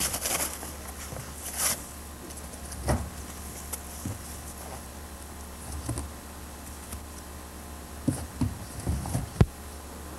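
Paper and cardboard rustling as they are handled and stuffed into a rusty steel drum, with scattered knocks, the sharpest one near the end, over a steady low hum.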